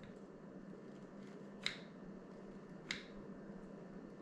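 Two sharp plastic clicks about a second apart, with a few fainter ticks, from the handlebar controls of a Bafang BBSHD e-bike kit being pressed during a bench test, over a faint steady hum.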